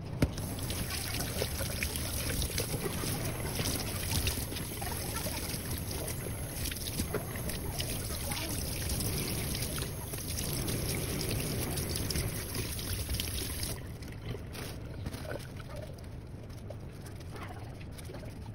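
Tap water running into a stainless steel sink while spring onions are rinsed under it by hand. About fourteen seconds in the water stops, leaving faint rustling and small knocks as the onions are handled.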